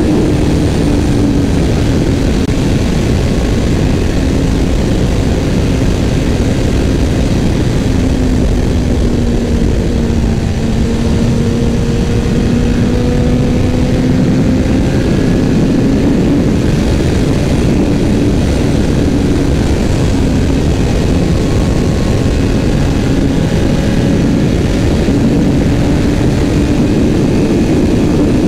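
Motorcycle engine running at steady cruising revs under heavy wind noise on the microphone. The engine note sags about ten seconds in and climbs back a few seconds later.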